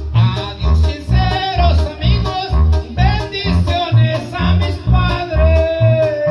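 A man singing a regional Mexican song into a microphone over backing music with a steady bass beat.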